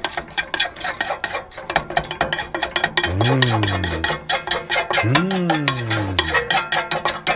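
Hot contents of a stainless steel frying pan being scraped and knocked out into a steel pot of spaghetti, a quick run of metal-on-metal scraping and tapping.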